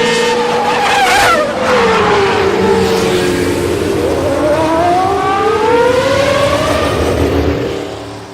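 A loud motor-like whine with several pitches: it drops about a second in, climbs again after about four seconds, then fades out near the end.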